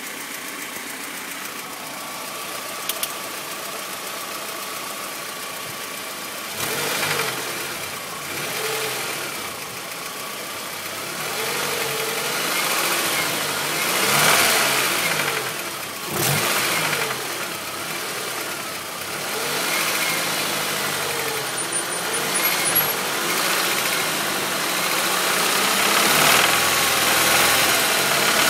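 Ford Sierra DOHC four-cylinder engine idling steadily, then revved up and let fall back several times from about six seconds in. Through it runs the knock-knock noise the owner is showing, a sign of a fault inside the engine.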